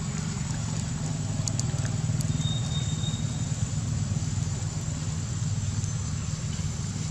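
A steady low mechanical hum, like a motor running, with a faint high steady whine above it and a few light clicks.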